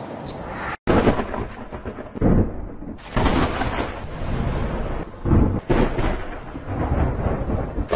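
Thunder rumbling and rolling, swelling in several loud surges after a brief break just under a second in.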